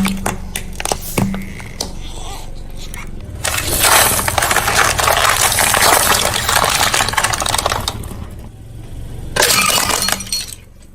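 A car tyre rolling over and crushing brittle objects. A few sharp cracks come first, then a dense crackling crunch that lasts about four seconds, and another short crunch near the end, under a steady low rumble.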